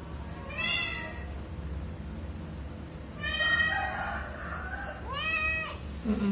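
Persian cat in labour meowing three times, the middle call the longest.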